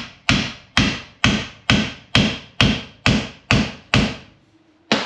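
Hammer tapping on the end of a maple axe haft, the axe head resting on a wooden stump, to seat the ash wedge in the eye: nine even, ringing blows about two a second, a short pause, then one more near the end.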